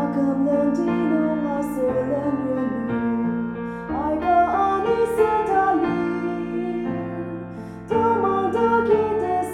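Keyboard music, with chords changing every couple of seconds and a short drop in level about eight seconds in.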